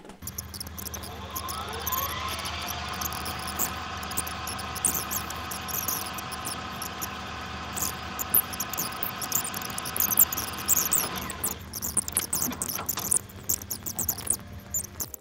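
Rapid, dense plastic clicks of keycaps being pulled off and pressed onto a mechanical keyboard, sped up, over a steady low hum. A held chord-like tone glides up over the first two seconds, holds, and fades out about eleven seconds in.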